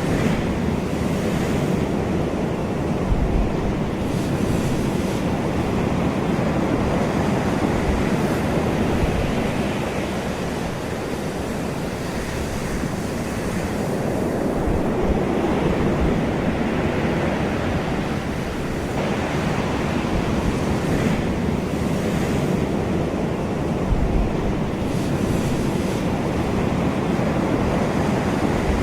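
Ocean surf washing on a shore: a continuous rush of breaking waves that slowly swells and eases, with brief brighter hisses as waves wash in.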